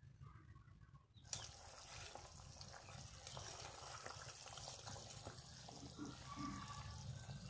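Thin tomato-and-potato curry gravy boiling in a kadai, a faint bubbling hiss that starts about a second in, with light scrapes of a spatula stirring it.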